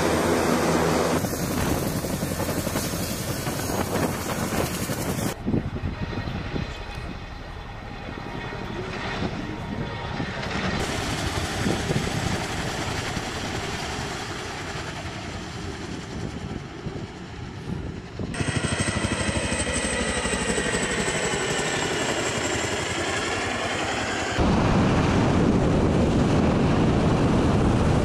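Boeing MH-47G Chinook tandem-rotor helicopter running on the ground and in flight, its rotor and engine noise changing abruptly from shot to shot; in one shot a faint high whine falls slowly in pitch. The last few seconds are a loud, steady rush of wind noise from an aircraft in flight.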